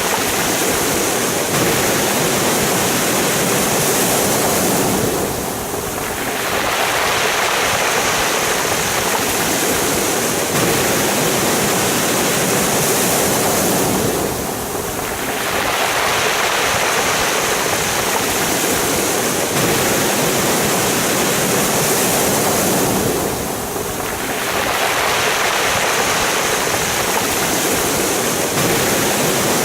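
Sea waves breaking and washing over a pebble beach: a steady rushing that eases briefly about every nine seconds between waves.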